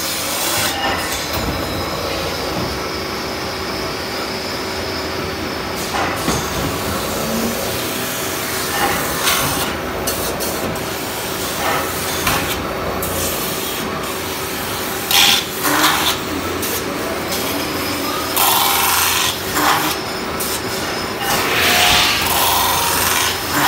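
CNC metal spinning machine running, its forming roller pressed against a spinning sheet-metal disc and shaping it over the mandrel into a cone, giving a steady rasping, scraping noise. The scraping comes in louder bursts in the second half.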